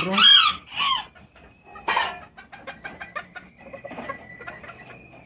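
Miniature chickens clucking, with a loud squawking call right at the start and another about two seconds in.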